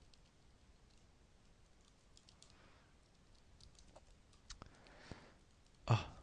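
Computer keyboard being typed on: scattered light key clicks, with one much louder thump near the end.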